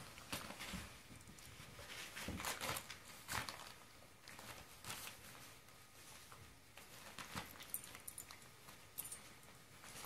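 A German Shorthaired Pointer crinkling and tearing clear plastic wrapping off a plush toy with its mouth, in irregular rustling bursts.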